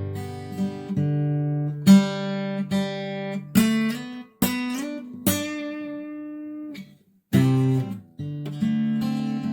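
Acoustic guitar playing slow chords, each struck and left to ring out, with a brief pause about seven seconds in.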